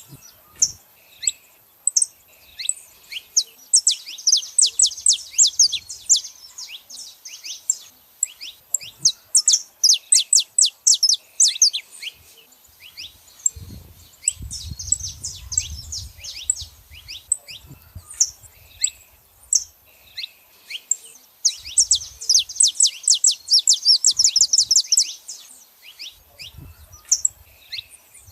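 Saffron finches calling, in runs of rapid, short, high downward-sweeping chirps that come in bursts of a few seconds each. A low rumble is heard briefly around the middle.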